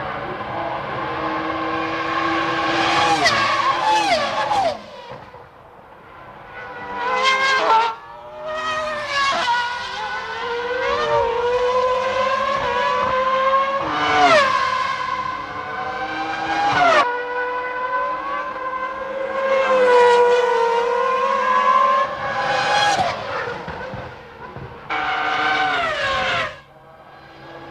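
Formula One race cars' engines at racing speed, revving up through the gears and passing by, the pitch climbing and then dropping steeply as each car goes past. The sound changes abruptly several times as the shots change.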